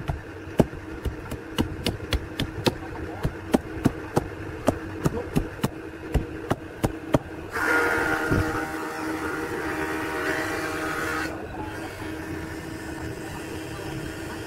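A homemade rail-steel axe chopping a bamboo stick to a point, with sharp chops about three a second. The chopping stops about seven seconds in, and a steady rushing noise follows for a few seconds.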